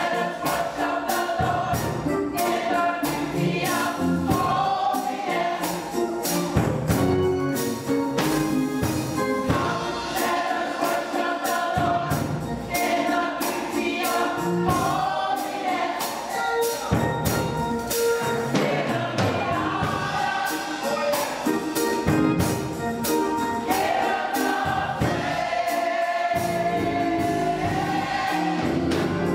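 Gospel choir singing with band accompaniment and a steady beat.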